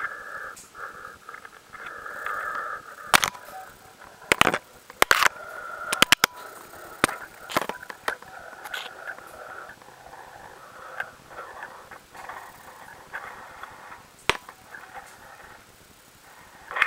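Small remote-control rover's electric drive motor whining in stops and starts, with sharp knocks and clatters as it bumps against rock, the knocks clustered about three to eight seconds in.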